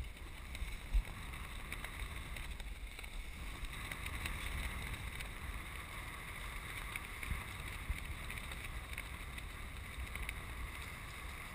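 Wind buffeting the microphone over choppy water around a small open boat, with one brief knock about a second in.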